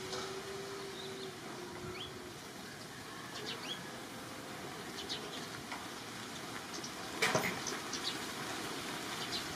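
Outdoor ambience: a steady hiss with a faint hum for the first second, a few short high chirps, and a sharp rustle about seven seconds in.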